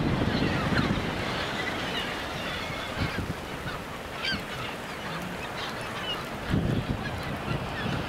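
A large flock of gulls calling, many short overlapping cries at once, over a steady rush of wind and surf.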